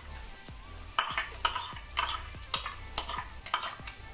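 Metal spatula scraping and tapping minced garlic out of a ceramic bowl into a wok: a quick run of clinks and scrapes, about three or four a second, starting about a second in, over a faint sizzle of butter and oil.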